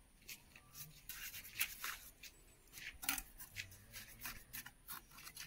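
Irregular short scrapes and rubs of wet mortar being worked against a row of stone blocks as they are bedded and jointed, with a few light clicks.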